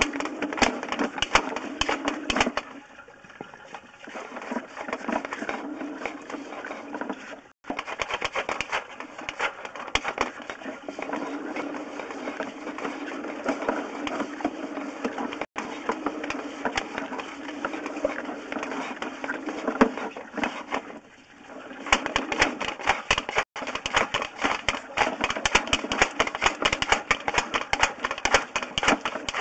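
Sewer inspection camera's push cable being fed down a drain pipe: a dense, rapid clicking and rattling, which eases off a few seconds in and again briefly about two-thirds of the way through.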